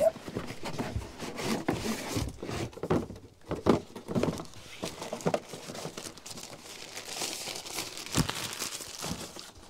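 Router packaging handled during unboxing: a cardboard box and a plastic tray knock and scrape, with a burst of plastic-bag crinkling near the end.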